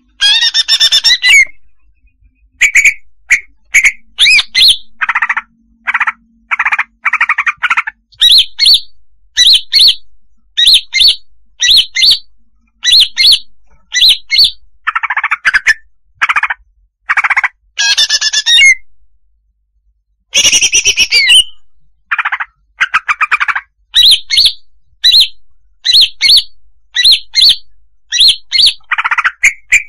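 Female greater green leafbird (cucak hijau) calling: quick clusters of short, sharp chirps and squawks with brief pauses between them. Longer, scratchy warbled phrases come at the start and twice around two-thirds of the way through.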